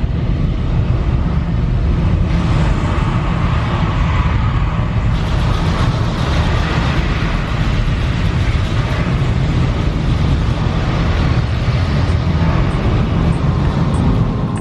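Saturn V rocket launch roar from the Apollo 8 launch re-creation, played back: a heavy, continuous low rumble that grows brighter and fuller in two steps, about two and five seconds in, as the rocket lifts off.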